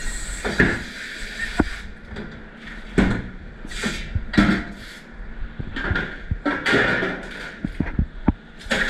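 Clatter of dishes and racks being handled in a commercial dish pit: irregular sharp knocks and short bursts of clattering, after a steady hiss cuts off about two seconds in.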